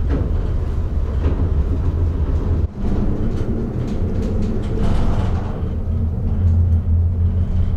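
Gondola cable car cabin running along its haul rope, heard from inside the cabin as a loud, steady rumble. Midway it clatters as it passes over a pylon's rollers.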